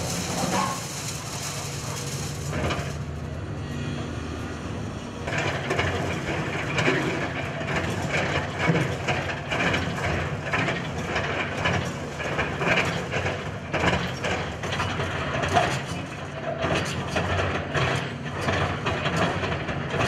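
Hidromek hydraulic excavator's diesel engine running steadily as its bucket works through demolition rubble. From about five seconds in, broken concrete and rebar crunch and clatter irregularly under the bucket.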